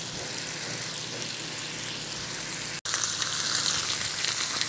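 Thin beef steaks sizzling in hot oil in a frying pan, a steady crackling hiss. It cuts out for an instant about three seconds in and comes back louder and brighter.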